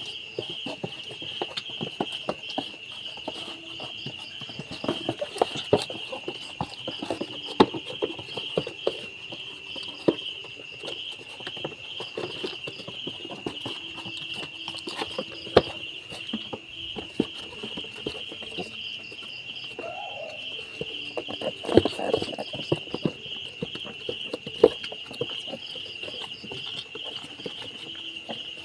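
Insects chirping in a steady, fast-pulsing trill, with irregular light taps and knocks over it from a newborn piglet's trotters on a wooden board as it is handled.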